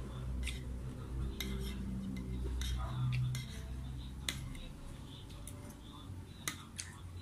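Metal fork and spoon clinking and scraping against a ceramic plate during eating, with about seven sharp clinks spread unevenly. A low hum runs underneath, strongest in the first half.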